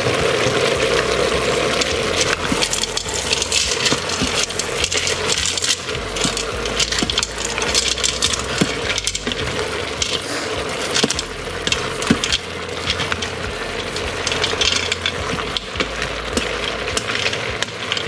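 Wooden spatula stirring dry rotini pasta through sautéed chicken and vegetables in a stainless-steel Instant Pot inner pot. The spatula scrapes the metal and the hard pasta clatters and clinks without a break.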